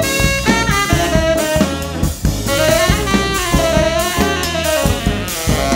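Tenor saxophone soloing in a funk tune, its notes bending up and down, over a drum kit and the rest of the band.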